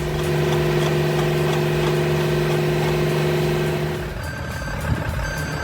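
A heavy vehicle's engine running at a steady pitch. About four seconds in, the sound changes abruptly and a vehicle reversing alarm begins beeping, about one beep a second.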